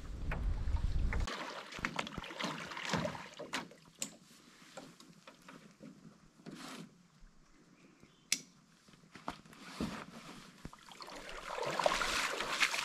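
Wind buffeting the microphone on a canoe out on open water for about a second, cutting off abruptly. Then scattered small knocks and water sounds as gear is unloaded from a beached canoe, with one sharp click about eight seconds in. Near the end come louder splashes of feet wading out through shallow water.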